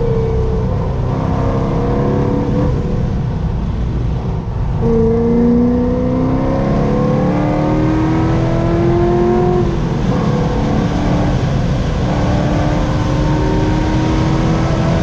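Corvette C6 Z06's 7.0-litre LS7 V8 under hard acceleration on track. Its pitch climbs, breaks off for a moment around four and a half seconds in, then climbs steadily again for about five seconds. It then drops and runs more evenly.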